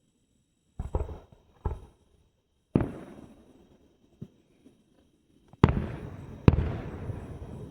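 Fireworks exploding: a string of sharp bangs, each trailing off in an echo, with the two loudest coming about a second apart near the end.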